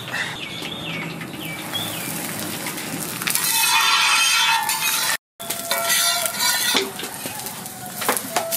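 Paratha cooking in oil on a hot flat iron tawa, sizzling, with a metal spatula clinking and scraping against the pan. The sizzle is loudest between about three and five seconds in and drops out for a moment at a cut.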